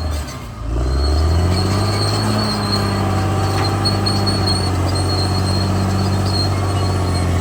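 Caterpillar D6R XL bulldozer's diesel engine running; it sags briefly about half a second in, then climbs in pitch and holds steady, with a thin high whine over it.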